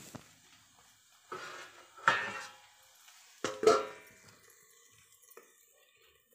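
Handling clatter: hard objects knocking and scraping as they are picked up and moved, in three short bursts with the loudest about two seconds in and again at three and a half seconds.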